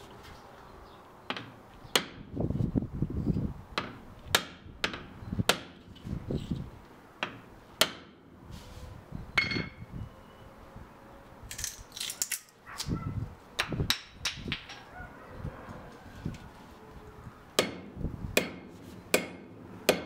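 Sharp, irregular knocks and taps as a forged axe is hafted: the wooden handle and steel head are struck against a steel anvil to seat the head, with a few duller thumps in between.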